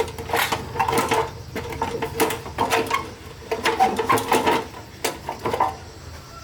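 Irregular metallic clinks and knocks, as of metal parts being handled or tapped, over a steady mechanical hum.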